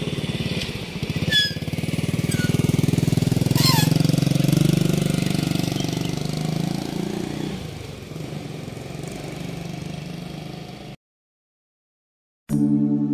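A small motorcycle engine passing by, growing louder to a peak about four seconds in and then fading away, with a few short high chirps over it; the sound cuts off suddenly near the end.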